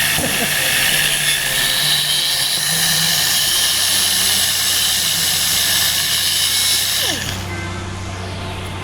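High-speed rotary tool grinding down plastic headlight mounting points with a steady high-pitched whir. It stops about seven seconds in.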